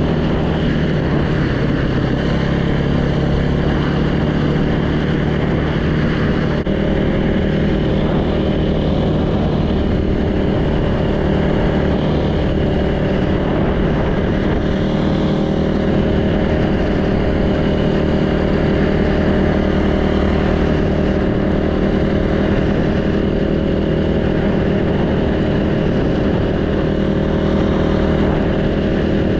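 Yamaha YZ450F's freshly rebuilt single-cylinder four-stroke engine running steadily while the bike is ridden, heard from a helmet-mounted camera. The engine note changes about seven seconds in.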